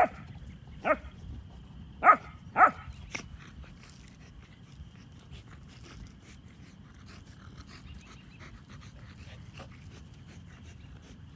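German Shepherd puppy barking in play: four short, high yaps in the first three seconds.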